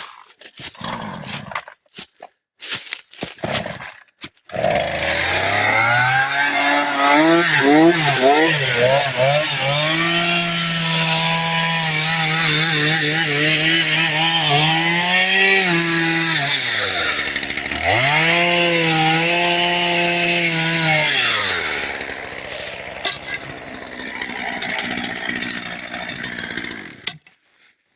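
Chainsaw cutting through a white oak log. It revs up about four seconds in and runs at full throttle, drops briefly to idle and revs again, then slows to a low idle and cuts off near the end. A few light knocks come before it.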